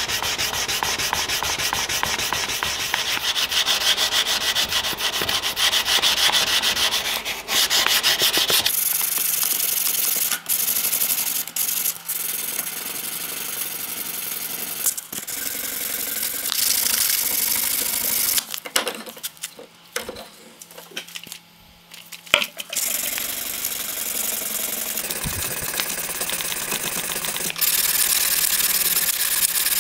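Steel axe head being hand-sanded with abrasive paper on a wooden block: fast back-and-forth rasping strokes. The strokes pause for a few seconds past the middle, then resume.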